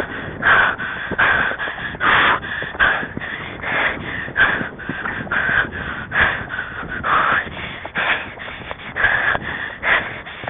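A rider's hard, rhythmic breathing close to the microphone, one loud breath roughly every second, over a constant rustling noise.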